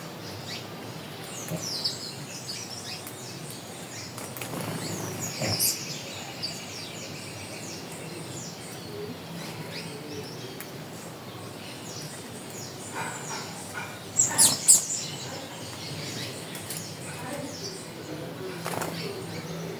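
Wild birds calling and chirping, several short high chirps scattered through, with a cluster of loud, sharp calls about 14 seconds in.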